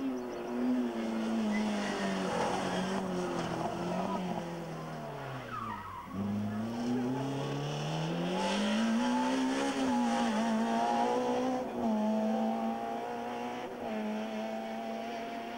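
Rally car engine under hard driving: its note drops steadily to a low point about six seconds in as the car slows, then climbs back up under acceleration and holds high with short breaks.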